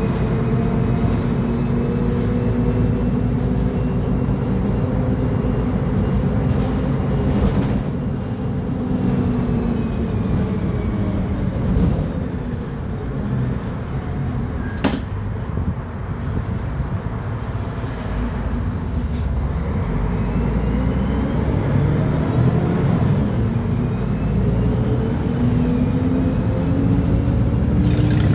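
Mercedes-Benz O500UDA bi-articulated bus's diesel engine running under way, with its Voith automatic gearbox: the engine note drops about a third of the way in, then climbs steadily over the last several seconds as the bus pulls away again. A single sharp click is heard about halfway through.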